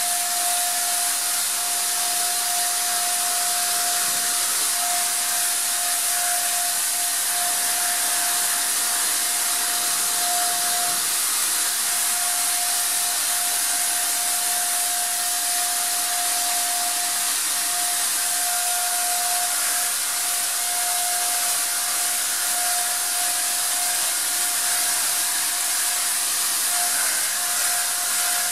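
Electric paint sprayer running steadily while spraying: a strong airy hiss of air and atomised paint over a steady mid-pitched motor whine that wavers briefly a few times.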